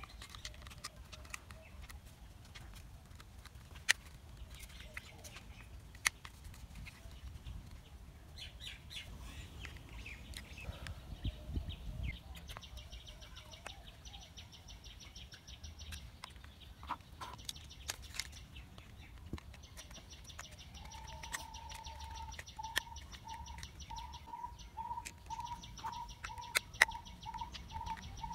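Small plastic toy parts clicking and snapping as they are fitted together by hand, with a small screwdriver turning screws into the plastic body; a couple of the clicks are sharp and loud. Birds chirp throughout, and from about two-thirds of the way in one bird repeats a single pitched note about twice a second.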